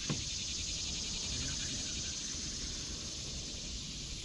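A steady chorus of insects buzzing with a fast pulsing trill, over a low outdoor rumble. A single short knock comes right at the start.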